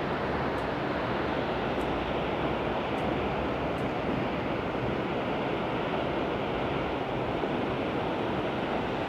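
Steady, even rush of a waterfall, with a few faint high clicks in the first half.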